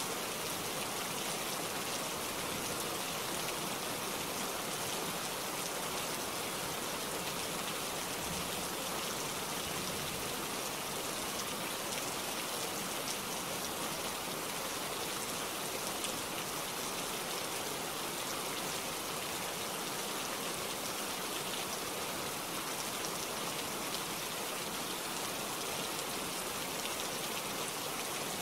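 Steady rain falling, an even hiss of many drops with scattered sharper drop hits.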